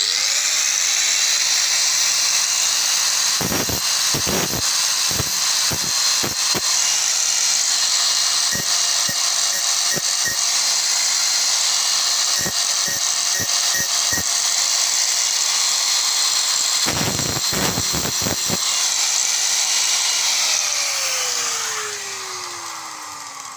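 Electric hand grinder starts and runs at full speed with a steady high whine, its disc grinding down the end of an old steel motorcycle-stand spring in several spells of contact. Near the end it is switched off and spins down, the whine falling in pitch and fading.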